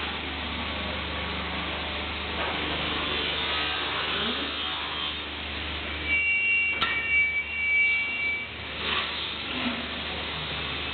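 Multi-blade MDF slicing (multi-rip) saw machine running with a steady hum; a thin high whine joins it for a couple of seconds past the middle, with a sharp click.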